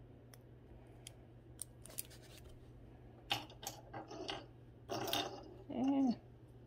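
Small clicks and rustles of costume jewelry being handled in the fingers, with sharper clicks and a brief rustle in the second half. A short vocal sound near the end.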